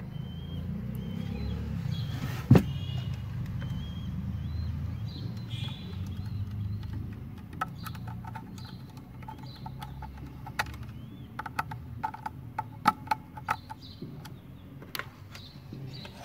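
Scattered clicks and small knocks from wires being handled at a car amplifier's terminal panel: one sharp click about two and a half seconds in and a cluster of clicks in the second half. Under them runs a low background rumble, with a few faint bird chirps.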